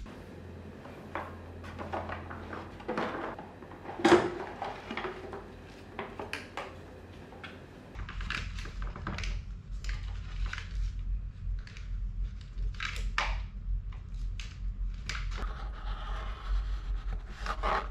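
Plastic and metal parts of a toddler trike being handled and fitted together by hand: a string of clicks, knocks and rattles, with one sharp knock about four seconds in.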